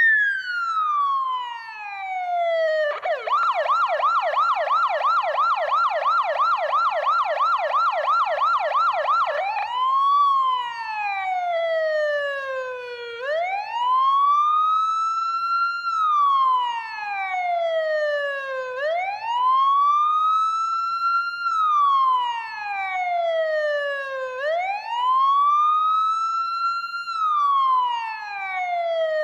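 Ambulance siren. A falling tone leads into a fast yelp of about four warbles a second. About ten seconds in it switches to a slow wail that rises and falls every five to six seconds.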